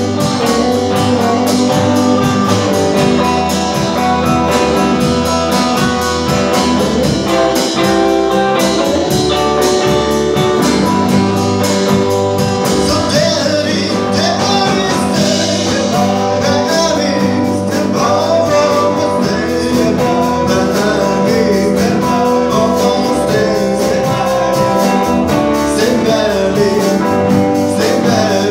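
Live rock-and-roll band playing: drum kit keeping a steady beat, upright double bass and electric guitars, with a man singing lead into the microphone, his voice most prominent in the second half.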